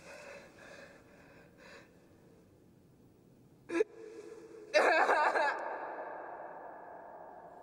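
A young woman's soft sobbing breaths, then a sharp gasp and, about five seconds in, a sudden loud anguished cry of 'ah!' that cuts through the near-silence and dies away slowly in a reverberant space.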